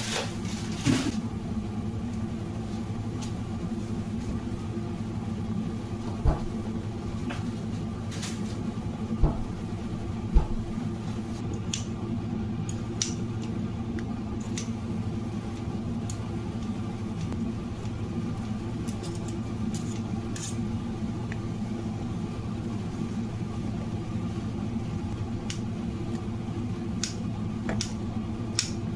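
Steady low mechanical hum from a running motor, with a few light knocks and scattered small clicks over it.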